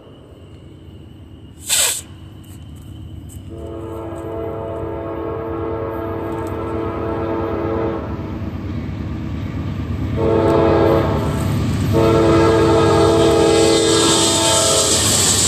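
Norfolk Southern AC44C6M diesel locomotive's air horn finishing the standard crossing signal: a long blast, a short one, then a final long blast held as the locomotive reaches the crossing, over the rising rumble of the approaching train. A single loud sharp knock about two seconds in.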